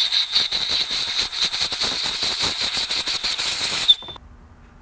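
Compressed-air blow gun hissing into a freshly drilled bolt hole in a transmission case, blowing out the drill shavings, with a steady high whistle on the hiss. The air cuts off suddenly about four seconds in.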